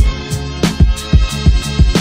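Background music with a steady beat: kick drum thumps about every third of a second over a bass line and sustained chords.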